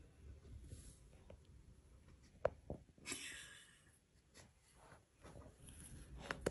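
Near quiet: faint room tone, with two small clicks about two and a half seconds in and a brief soft rustle just after.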